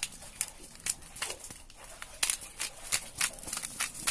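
Sweet smoky barbecue seasoning being shaken from its container over raw chicken: an irregular string of crisp, high ticks and rustles, a few a second.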